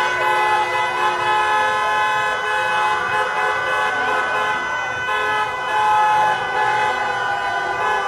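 Many car horns honking at once in a street celebration, their held tones overlapping without a break, with a crowd cheering.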